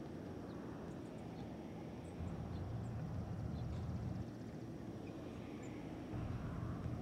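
Outdoor ambience: a steady low rumble of distant road traffic that swells twice, with a few faint bird chirps scattered over it.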